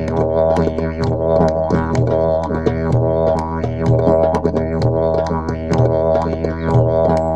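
Music: a continuous low droning wind instrument with rich overtones that sweep as it is played, and a rhythmic low pulse a little more than once a second.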